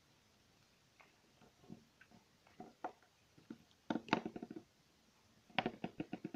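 A small plastic Littlest Pet Shop figure handled and set down on a hard, glossy tabletop: scattered light clicks and taps, then two quick runs of clicks, about four seconds in and again near the end.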